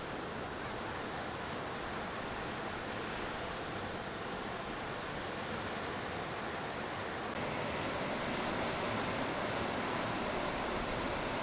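Ocean surf: a steady wash of waves breaking and running through shallow water, a little louder from about seven seconds in.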